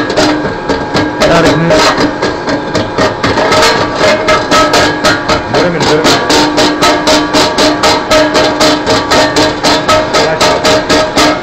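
Music with a fast, steady shaker-like beat, about four to five strokes a second, and plucked-string notes.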